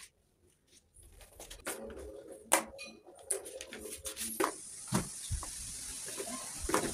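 Plastic ball rattling and knocking around the tracks of a three-tier plastic cat ball-track toy as a cat bats at it. The sound is a run of irregular sharp clicks and knocks, starting about a second in.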